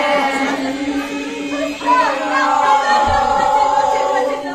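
A group of young voices singing together, holding long notes.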